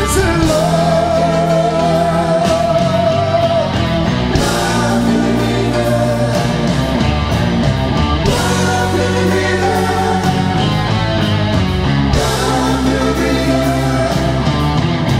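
Live progressive rock band playing a slow, full arrangement: drum kit with cymbals, bass guitar, electric guitar and keyboards, with long held sung notes over sustained chords.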